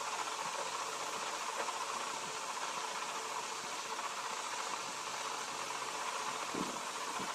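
Steady, even hiss of background noise, with a faint soft tap or two near the end.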